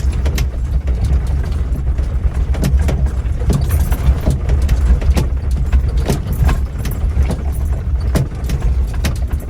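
Suzuki Jimny JA11 on the move, heard from the cabin: a steady low rumble with frequent irregular clicks and rattles.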